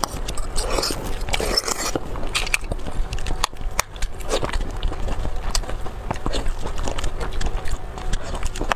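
Close-up eating sounds: a person biting and chewing, with many small wet clicks and crackles, busiest in the first two seconds.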